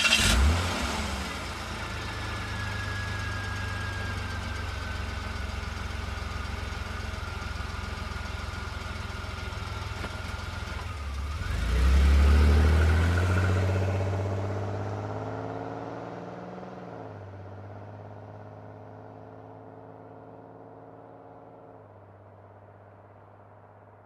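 Car engine running steadily, then revving up sharply about eleven seconds in. Its pitch then falls away and the sound slowly fades out.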